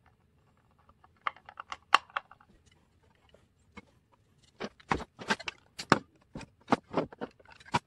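Irregular sharp clicks and snaps of small hard plastic model-truck parts being handled and worked by hand. A few come about a second in, then they grow denser and louder for the last three seconds.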